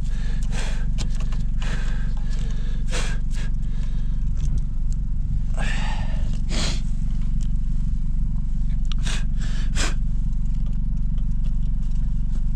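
Car engine idling with a steady low hum, with scattered clicks and scraping sounds over it.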